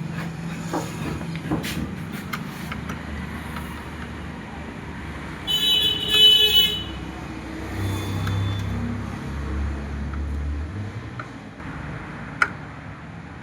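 Road traffic noise: a vehicle horn honks for about a second near the middle, then an engine rumble swells and fades as a vehicle passes, with a sharp click near the end.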